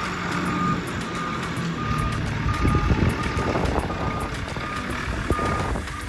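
John Deere backhoe loader's back-up alarm beeping at a steady pace, about one beep every three quarters of a second, as the machine reverses. Under it the diesel engine runs, swelling for a moment about halfway through.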